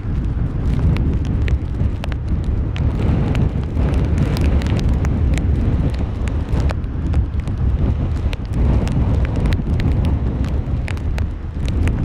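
Strong wind rumbling on the microphone over the crash and wash of large storm waves breaking on boulders and a breakwater, with scattered short ticks.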